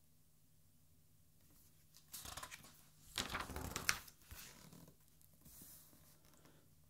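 A page of a large hardcover art album being turned by hand: a paper rustle starting about two seconds in, growing to a louder swish with a sharp slap near the middle as the page comes down, then softer rustles as it settles.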